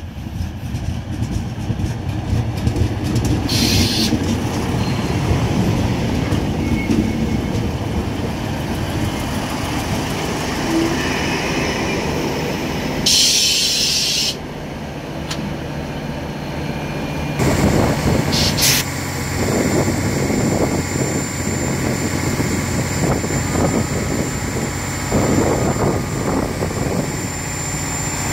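Diesel commuter railcar pulling in alongside the platform, its engine running and wheels rolling on the rails. Loud bursts of air hissing come about four seconds in and again near the middle. Later there is a shorter hiss and a run of clattering knocks from the wheels.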